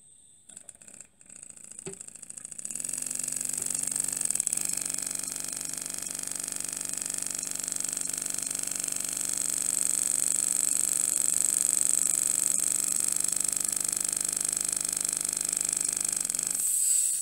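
Miniature brass four-cylinder single-acting model steam engine running on compressed air. It speeds up about two seconds in, then runs fast and steady with a rapid mechanical clatter and a hiss of escaping air. It cuts off suddenly near the end as the air line slips off.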